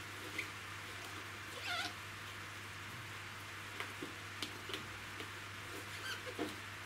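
Hands packing sphagnum moss around orchid roots in a clear plastic pot: soft rustling and a scatter of small clicks and taps from the pot. A brief wavering squeak comes about two seconds in, and a shorter one near the end.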